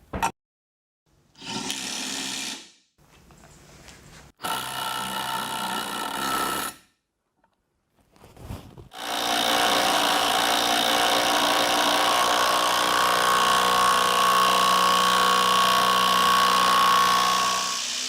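A Bosch GDS 18 V-LI cordless impact wrench running in three bursts: two short runs of about one and a half and two and a half seconds, then one long run of about nine seconds.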